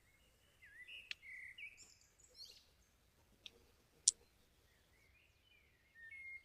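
Faint bird chirps and short calls, with a few sharp clicks about one, three and a half, and four seconds in.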